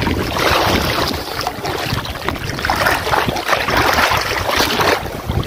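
Sea water sloshing and splashing around legs as someone wades through shallow surf, with wind rumbling on the microphone.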